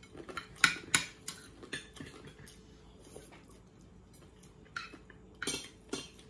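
Metal spoons and forks clinking and scraping against plates during a meal: irregular sharp clicks, several in the first two seconds and a few more near the end.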